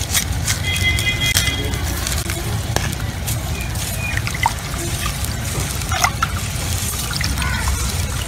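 A hand squeezing and swishing salt and spices through tamarind water in an aluminium pot, the liquid sloshing and splashing in short sharp bursts. Background music plays underneath.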